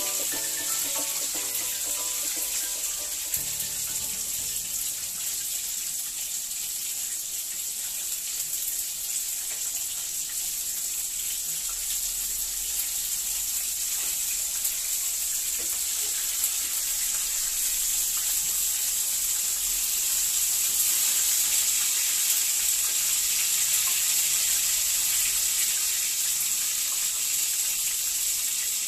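Chicken pieces frying in oil in a pan, a steady high sizzle, with a few light clicks of the tongs against the pan as the pieces are turned.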